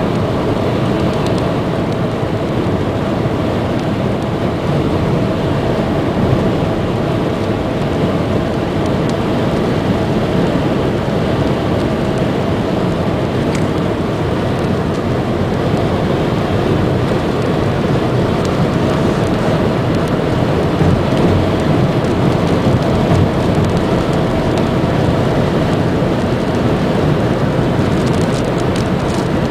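Heavy rain falling in a steady downpour during a thunderstorm.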